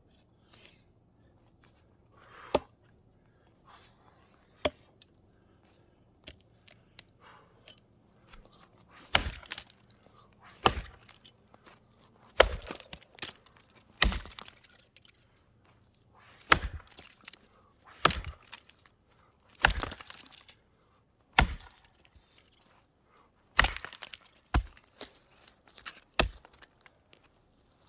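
An axe chopping into a wooden block: two light knocks early, then about eleven heavy strikes, roughly one every one and a half to two seconds.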